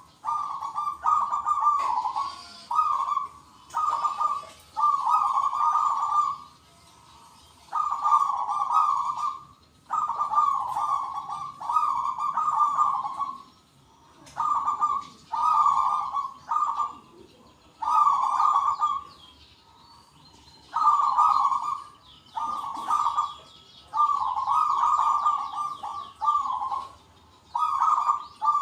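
Zebra doves cooing back and forth: one burst of rapid staccato coos after another, each a second or two long with short gaps. Smaller birds chirp faintly higher up.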